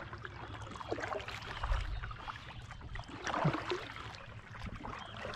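Kayak paddle strokes: the blade dipping into lake water with soft, irregular splashes and drips.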